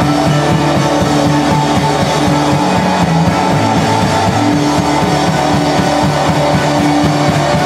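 A rock band playing live through amplifiers: electric guitars, keyboard and a drum kit keeping a steady beat under sustained chords.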